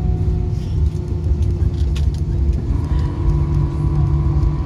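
Airbus A320 cabin noise while the airliner rolls out on the runway after landing: a steady low rumble of engines and wheels with several steady hums. A brief click comes about two seconds in, and a higher steady tone joins shortly after.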